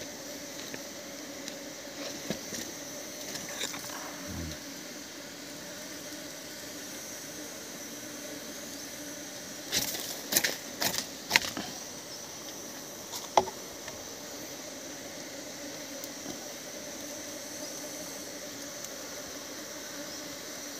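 Hands handling a plastic sap-collecting jerrycan and the tapped palm flower stalk: a quick cluster of sharp knocks and rustles about ten seconds in and one more knock a few seconds later, over a steady background hiss.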